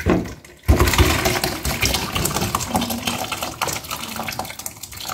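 Cooked vegetables and their cooking liquid poured out of a stainless steel pressure-cooker pot into a bowl, splashing steadily, starting about a second in.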